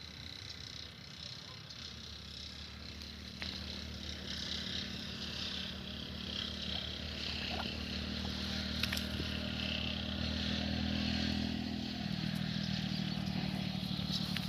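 A motor engine running with a steady low hum that grows gradually louder, its pitch shifting about twelve seconds in. Insects chirr faintly in the background.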